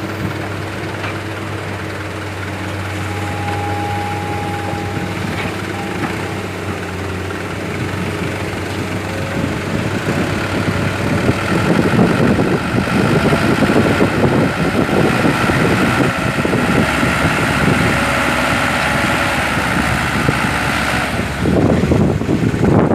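Dump truck's diesel engine running, a steady low hum that grows louder and rougher about halfway through, with a steady high whine over it until near the end.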